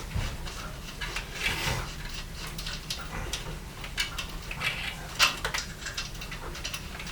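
Scattered light clicks and clinks of hand tools and parts being handled while unbolting wiring from a truck engine, a few separate knocks spread over several seconds above a low steady hum.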